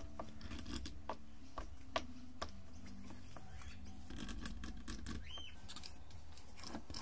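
Light irregular clicks and ticks of an M8 threading die in a 3D-printed die holder being turned by hand to cut a thread on brass rod held in a collet chuck, with a short squeak about five seconds in.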